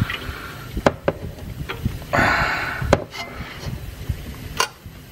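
Steel spanners clinking and knocking against each other and the suspension as they are fitted to a ball-joint nut, a few separate sharp knocks with a brief scraping rush in between.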